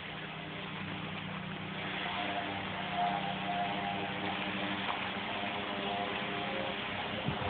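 An engine running steadily, a low hum with a hiss over it, slowly getting louder.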